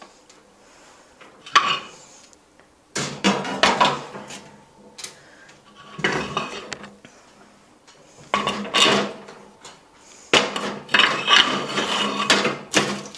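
Granite chinchilla slabs being lifted and set down on a metal cage shelf, clacking and knocking against the shelf and wire bars in several short bursts of clatter.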